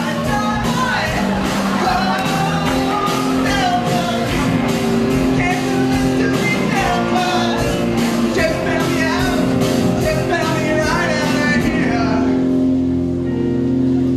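Rock song with voices singing over a steady drum beat; about twelve seconds in the drums drop out, leaving a held chord.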